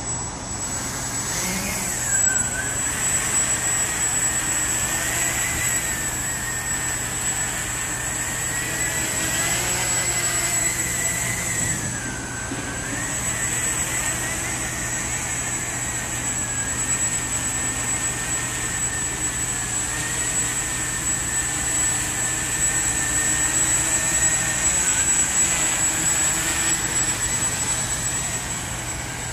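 Walkera QR X350 Pro quadcopter's four electric motors and propellers buzzing in flight, the pitch wavering up and down as the throttle changes, over a steady high whine.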